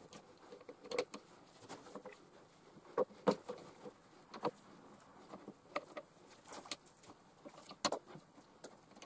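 Scattered light clicks, knocks and rustles, irregularly spaced, from hands handling the plush-covered parts and paper instructions of a cat scratching tree being assembled.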